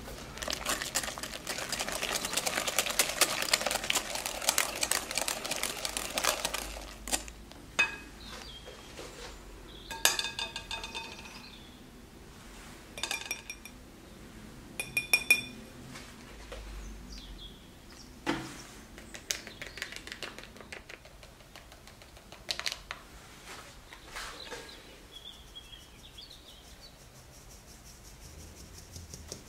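Wire whisk beating butter and egg in a glass mixing bowl: a fast, dense run of scraping clicks for about the first seven seconds. After that, scattered clinks of metal on glass, some briefly ringing, a few knocks, and light ticking of a fine metal sieve shaken and tapped as flour is sifted into the bowl.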